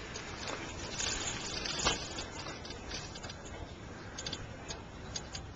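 Bicycle ride noise: steady road and wind noise with irregular rattling clicks from the bike and camera over the road surface, one sharper knock about two seconds in.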